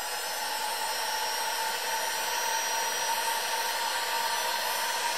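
Electric heat gun running steadily, a blowing hiss with a steady whine, heating heat-shrink tubing to shrink it down.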